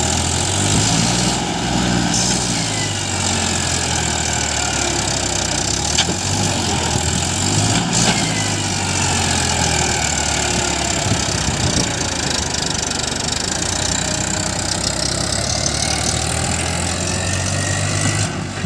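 Diesel engine of heavy machinery running steadily, its speed rising and falling now and then, with a couple of sharp knocks about six and eight seconds in.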